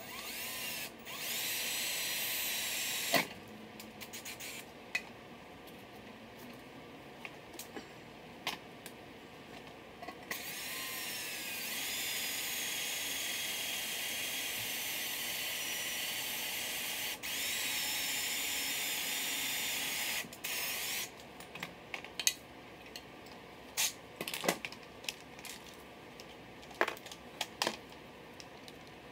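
Electric drill drilling into the aluminium bell housing: a short run of about three seconds, then a longer run of about ten seconds starting about ten seconds in, each starting with a rising whine as the drill spins up. Scattered light clicks and taps follow near the end, with drill bits being handled.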